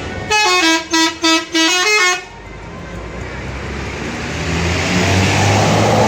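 Tour bus's Basuri telolet multi-tone horn playing a short stepping tune of several notes, in four quick blasts over about two seconds. Then the bus's engine and road noise swell steadily as it drives past.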